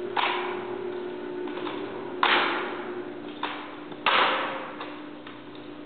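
Sharp slaps and knocks of hands striking a drill rifle during manual-of-arms rifle drill, each ringing on in a hall's echo. About six strikes, the loudest about two and four seconds in.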